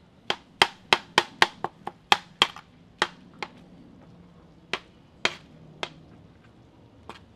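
Long-handled metal spatula clacking against the steel FIREDISC plow-disc pan while stirring baked beans: a quick run of sharp clacks in the first three seconds or so, then a few more spaced apart.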